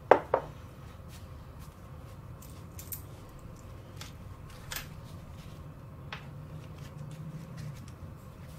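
Two sharp clinks of crockery being set down near the start, then faint, scattered clicks and light rustling as small objects are handled on a wooden tabletop, over a low room hum.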